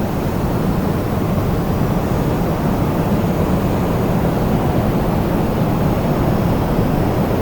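Wind blowing steadily: a continuous deep rushing rumble without gusts or breaks.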